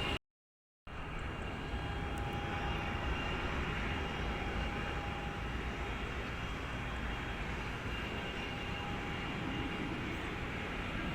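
Jet airliner engines on a landing approach, a steady rumble with a faint steady whine. The sound drops out completely for a split second near the start.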